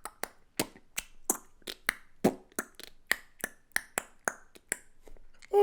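A run of sharp, dry clicks, roughly three a second and uneven in loudness. Right at the end, a voice-like tone starts and slides downward in pitch.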